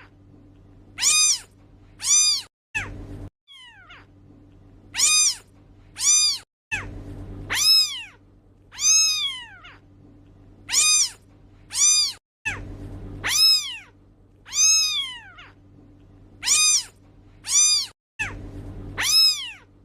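A cat meowing over and over, about one meow a second, each a short call that rises and then falls in pitch. A steady low hum runs between the meows.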